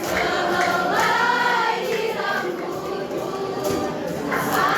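Junior high school choir singing together.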